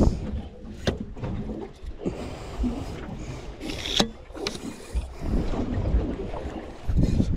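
Water slapping against the hull of a small fishing boat, with a low rumble and a few sharp knocks on the boat, the sharpest about four seconds in.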